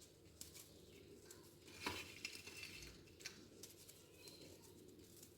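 Faint kitchen handling: a few light taps and scrapes of a utensil against a bowl of whipped cream.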